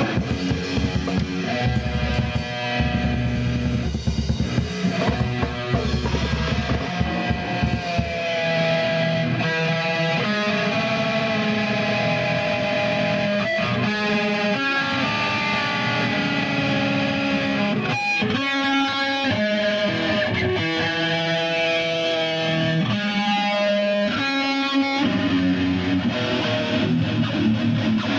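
Live rock band playing: distorted electric guitar over drum kit, the drums falling away about eight seconds in while the guitar carries on with held notes.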